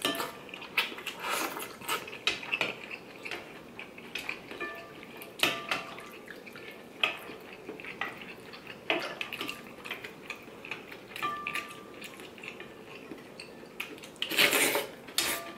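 Ramen being eaten from a large ceramic bowl: a metal spoon and chopsticks clink and tap against the bowl again and again, some clinks ringing briefly. There are slurps of noodles and broth, with a longer, louder slurp near the end.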